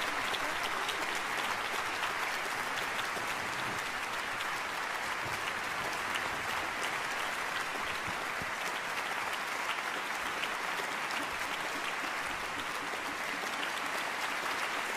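Audience applauding steadily in a concert hall, a dense, even patter of many hands clapping.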